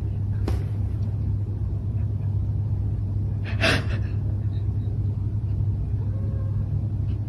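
Domestic cat purring loudly and steadily, with one brief higher sound about three and a half seconds in.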